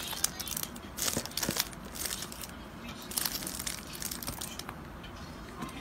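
Crinkling, rustling noises in short bursts, coming in clusters about a second apart.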